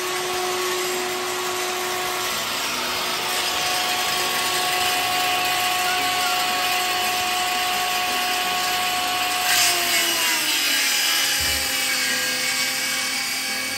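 Electric power tool running steadily with a whining motor tone over a gritty noise. The pitch sags from about ten seconds in, just after a short burst of hiss.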